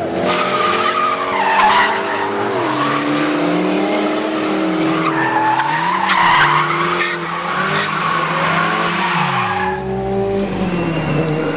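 KTM X-Bow's turbocharged four-cylinder engine revving up and down as the car spins a burnout, its rear tyres squealing in a wavering howl. The engine pitch swings several times and drops away sharply near the end.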